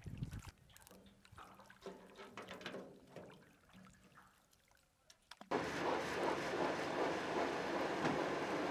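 Water dripping and trickling as a fishing net tangled with lake weed is hauled out of the lake. About five and a half seconds in, a much louder, steady rushing noise starts suddenly.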